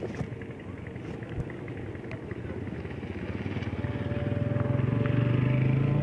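A motor vehicle's engine running and drawing closer, its low steady hum growing louder from about halfway through.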